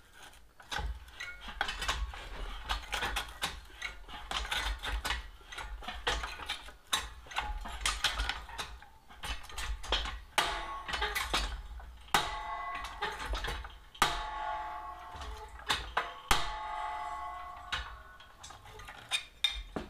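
Deep-throat shrinker stretcher's shrinking jaws repeatedly biting a strip of 16 gauge steel: a run of sharp metallic clacks at irregular intervals, several a second at times. After some strokes in the second half, the steel strip rings briefly.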